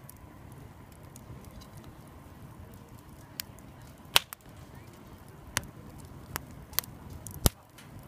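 Split-log wood fire burning: a steady low rush of flames with sharp crackles and pops from the wood, the loudest about four seconds in and again near the end.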